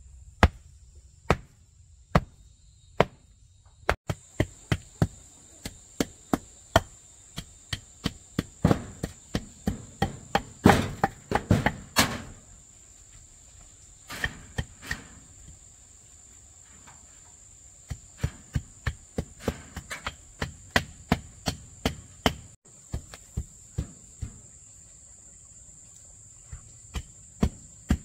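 Repeated sharp blows of a hand tool striking wood, in runs of one to two strokes a second with short pauses. Behind them is a steady, high insect chorus of crickets.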